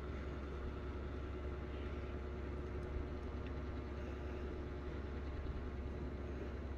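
Electric desk fan running close by with a steady low hum and whir of air.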